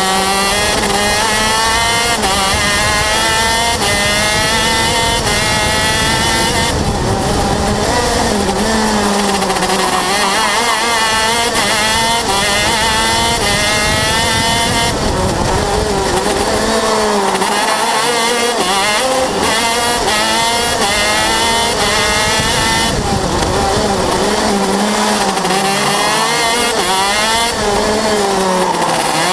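125cc two-stroke KZ shifter kart engine at racing speed, heard onboard: its pitch climbs and breaks as it accelerates through the gears, then drops as it brakes for corners, over and over.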